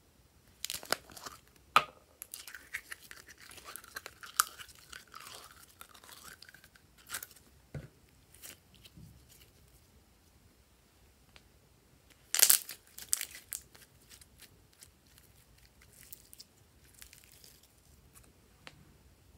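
Purple glitter slime handled by hand: pulled from a plastic tube and stretched, giving sticky crackles and clicking pops. The crackling is densest over the first several seconds, with a loud burst about twelve seconds in, then thins to scattered clicks.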